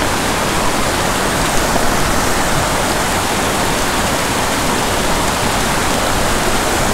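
A small mountain creek rushing over rocks in small cascades of white water: a steady, loud rush of water.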